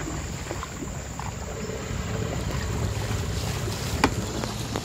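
Steady low rumble and water noise of a small boat moving on a river, with one sharp click about four seconds in.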